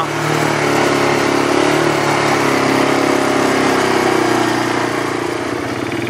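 Small vehicle engine running steadily while under way, a little quieter near the end.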